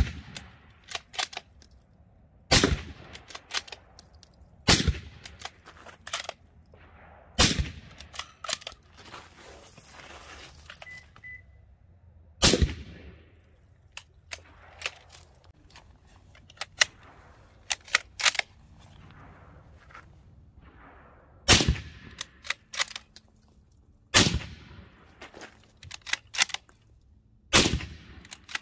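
Christensen Arms Ridgeline Scout bolt-action rifle firing through a suppressor: about eight single shots, a few seconds apart, with a pause of several seconds in the middle, and lighter clicks between the shots.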